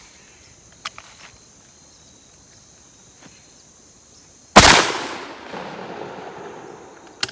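A lightweight single-shot shotgun fires one loud shot about four and a half seconds in, the report echoing and dying away over about two seconds. Faint clicks come about a second in, and a sharp click near the end.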